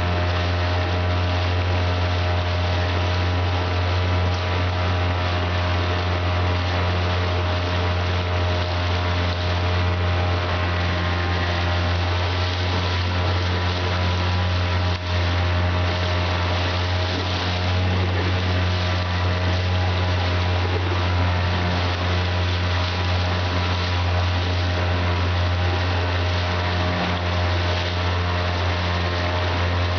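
Outboard motor running at a steady, unchanging throttle, pushing a heavily loaded 20-foot Old Town canoe, with water rushing and splashing along the hull.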